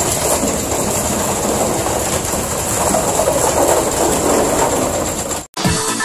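Concrete mixer truck running, its drum turning as wet concrete slides down the chute, a steady dense mechanical noise. It cuts off abruptly about five and a half seconds in, giving way to electronic music.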